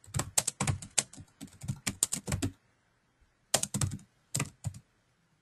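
Typing on a computer keyboard: a quick run of keystrokes for about two and a half seconds, a pause of about a second, then a shorter run of keystrokes.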